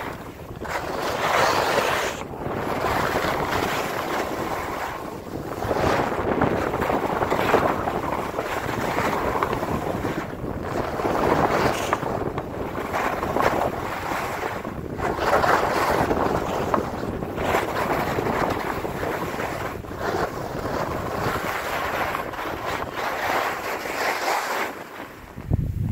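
Skis sliding and scraping on packed, groomed snow, a hiss that swells and fades with each turn, with wind rushing over the microphone.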